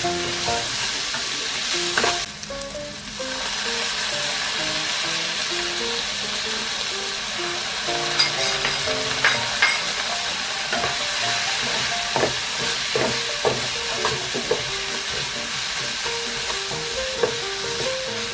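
Food sizzling steadily in hot oil in a pan while a spatula stirs it, with a few sharp taps of the spatula on the pan in the middle; the sizzle briefly drops a couple of seconds in.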